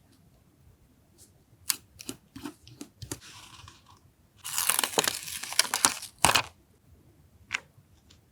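Paper being handled for a journal collage: a few light taps and a short rustle, then about two seconds of paper tearing and crinkling, and one more tap near the end.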